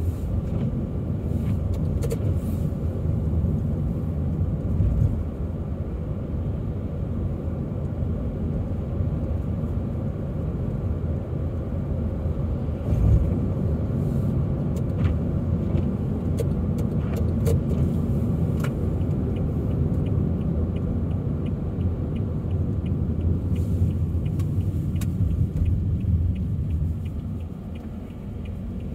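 Steady road and engine rumble of a car being driven, heard from inside the cabin, with a few light knocks. Near the end comes a run of light, evenly spaced ticks.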